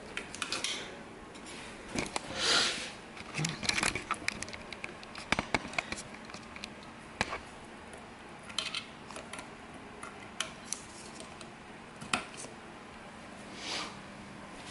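Scattered clicks, taps and short rustling swishes of small hard objects being handled, over a faint steady hum.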